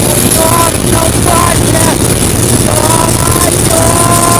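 A longtail racing boat's three-litre turbo-diesel car engine running flat out, with water and wind rushing past; a steady high whine sits above the roar. Pitched, gliding tones come and go over it a few times.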